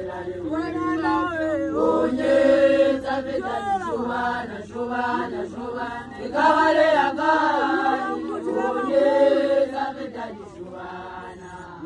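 A group of Basotho women initiates chanting a song together, several voices in swelling phrases with sliding pitches. The singing dies down near the end.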